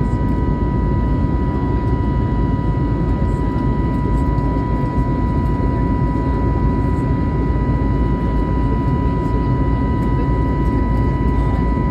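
Steady cabin noise inside an Airbus A320neo airliner: a continuous low rushing drone with a steady high whine running through it.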